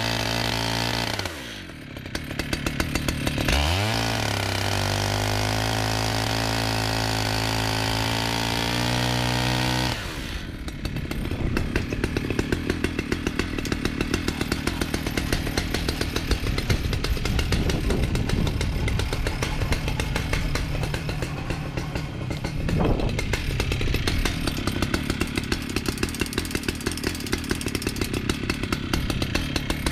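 Chainsaw on a chainsaw mill, ripping a log into planks. Its revs drop about a second and a half in and climb back to a steady high pitch around four seconds, then from about ten seconds in it runs rougher with a rapid pulsing as it cuts.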